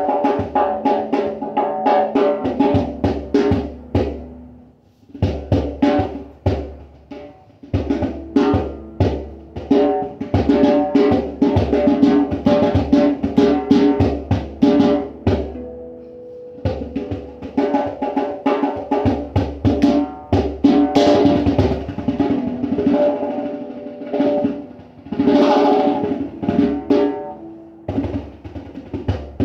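Hand drum played fast, with dense runs of pitched strikes and brief pauses about four and seven seconds in.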